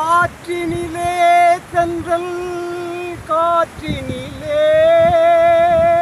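A man singing a wordless melody in long held notes with a slight waver. It opens with a rising slide into the first note, breaks off briefly a few times, and ends on one long held note.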